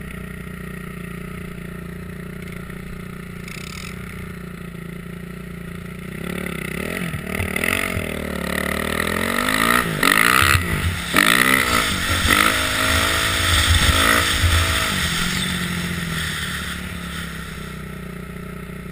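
Motorcycle engine running at a steady idle, then revved and accelerated hard for about nine seconds, its pitch rising and falling several times, before dropping back to idle near the end.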